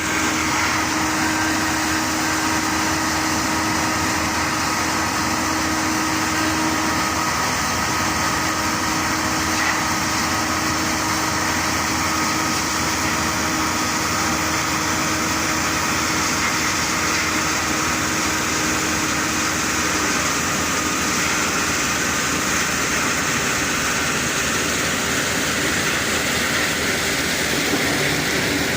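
Large comprehensive wood crusher running with a steady, loud machine noise and a few faint whining tones.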